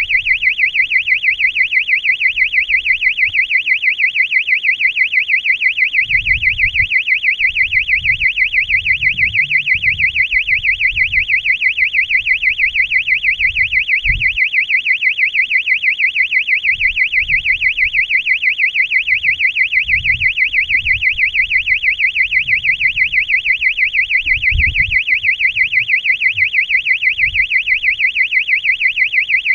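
Electronic buzzer on a high-altitude balloon payload sounding a loud, continuous, rapidly warbling alarm tone, the kind of beeper carried to help find the payload after landing. Faint low rumbles come and go under it.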